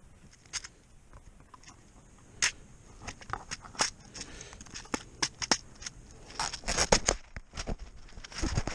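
Scattered small clicks, taps and rustles of gear being handled at close range, becoming a busy cluster of scuffs and knocks in the last few seconds.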